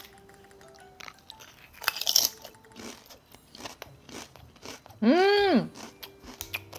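Crisp crunching of potato chips being bitten and chewed close to the microphone. About five seconds in, a short, loud tone rises and then falls in pitch.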